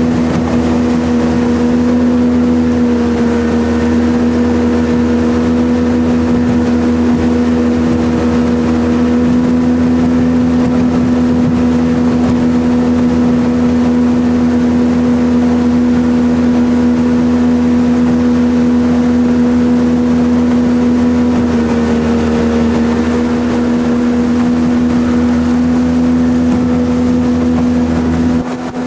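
Jet boat engine running at a steady cruising pitch, with a slight dip in engine pitch about 21 seconds in and a drop in level near the end.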